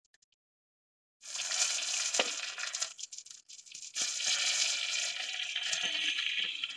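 Hot oil sizzling in a frying pan as stuffed baby eggplants go in. The sizzle starts suddenly about a second in, eases briefly, and comes back strongly about four seconds in.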